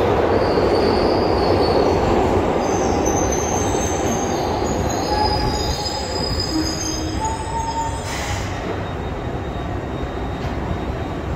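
Glasgow Subway train running into a platform and braking, its wheels squealing in several high tones for a few seconds while the running noise eases off. A brief hiss comes about eight seconds in as the train draws to a stop.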